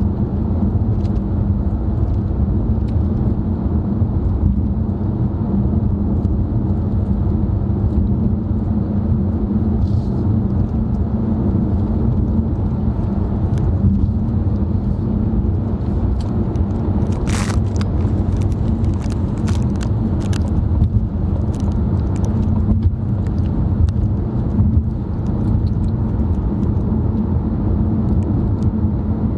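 Steady road and engine rumble heard from inside a moving car's cabin, with a scatter of small clicks in the second half.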